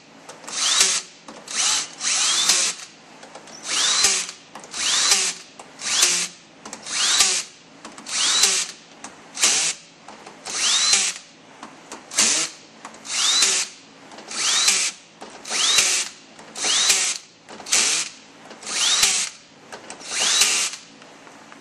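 Power drill with a socket bit running down valve-body bolts on an automatic transmission, one bolt after another: about twenty short bursts, roughly one a second, several starting with a brief rising whine as the motor spins up. The bolts are being snugged down before final torquing by hand.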